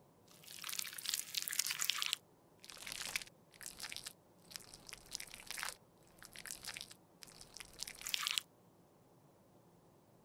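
Lipstick bullets rubbed across the skin on the back of a hand, close-miked: six scratchy swipes, the longest about two seconds, stopping about eight seconds in.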